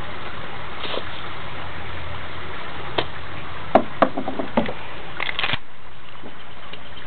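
A gas blowback airsoft pistol firing a few shots, sharp snaps about four seconds in with a short cluster just after five seconds, over a steady hiss.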